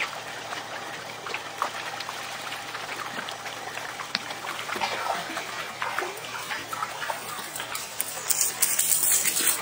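Water splashing and dripping, full of small ticks and splashes. About eight seconds in comes a louder, hissing burst of splashing as a hooked mackerel is lifted from the water.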